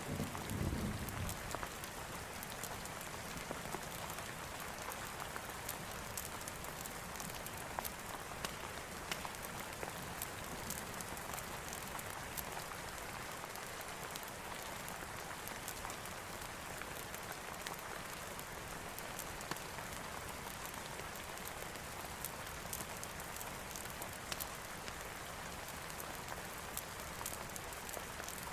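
Steady rain falling, an even hiss with many small sharp ticks of drops through it. A low thunder rumble fades away in the first second.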